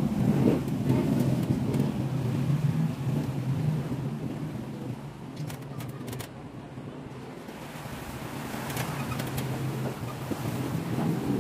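A motor vehicle's engine running steadily nearby. It is louder at first, drops away around the middle and builds again near the end, with a few light clicks about halfway through.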